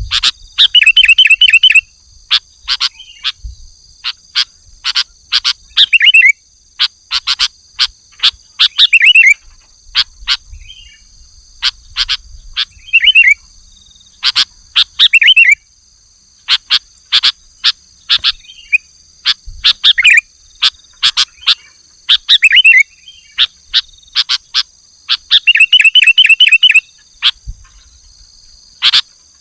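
Sooty-headed bulbul (kutilang) in full song: short, loud, sharp call notes repeated every second or so, broken by quick trilled runs about a second in and again near the end, over a steady high-pitched drone.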